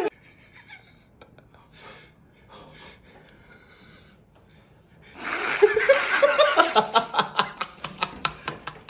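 A person's gasping breaths, then about five seconds in a loud, rising voiced gasp that breaks into fast, pulsing laughter.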